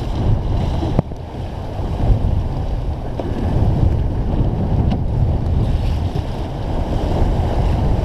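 Wind buffeting the microphone over the rush and splash of choppy water against the hull of a Mirror sailing dinghy heeling under reefed sail. A single sharp knock about a second in.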